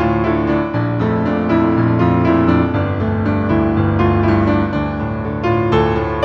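Solo piano playing a flowing piece with overlapping sustained notes and a gentle rocking feel.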